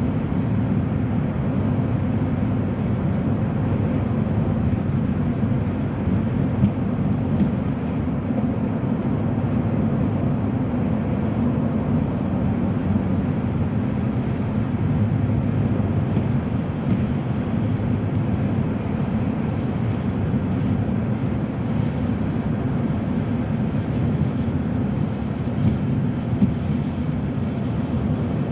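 Steady low rumble of road and engine noise inside a moving car's cabin, with a few small knocks.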